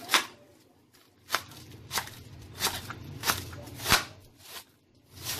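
Kitchen knife chopping a cabbage finely on a plastic cutting board: about seven crisp chops, roughly one every two-thirds of a second.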